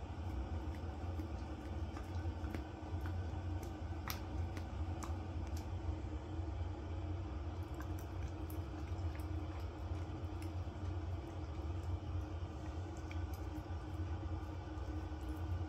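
Dog licking and smacking at food held out on a spoon: irregular wet tongue clicks and smacks, a few a second, over a steady low hum.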